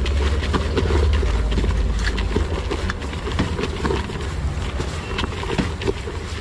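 Puffed rice being stirred and tossed by a plastic-gloved hand in a plastic bowl: a quick, irregular run of crackles and rustles, over a steady low rumble.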